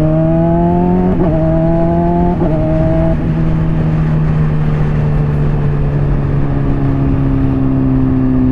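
Honda CBR600RR inline-four through a slip-on exhaust, accelerating hard with two quick upshifts about a second and two and a half seconds in. It then settles into a steady cruise, with the engine note easing slowly down, over wind rush.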